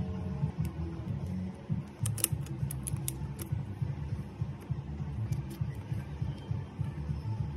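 Sharp plastic clicks as a plastic pry tool unclips the plastic midframe of an LG V60 ThinQ phone: a quick run of clicks about two seconds in and a few fainter ones later, over a steady low hum.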